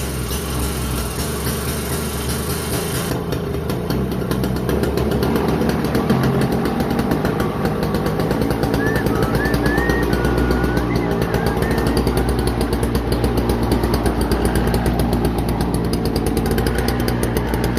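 Toro CCR2450 snowblower's 141cc two-stroke engine running steadily with a fast, even beat, getting a little louder over the first few seconds.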